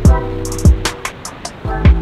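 Background music with a beat: deep kick drums that drop in pitch, quick hi-hat ticks and held bass and synth notes.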